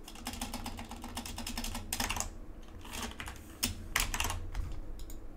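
Computer keyboard being typed on: a quick run of keystrokes near the start, then a few single key presses spread through the rest.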